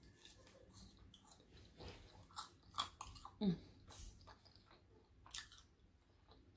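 A person chewing french fries: quiet, irregular chewing clicks and smacks, with a short hum about three and a half seconds in.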